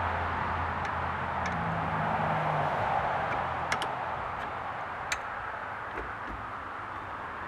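Light metallic clicks as a hex key and the steel bike-rack parts are handled, two sharper ones about halfway through, over a steady background hiss.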